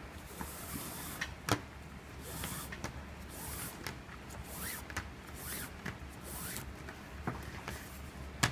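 Nylon paracord strands being pulled through the loops of a knot weave: a string of soft swishing rubs, with a few small clicks and taps.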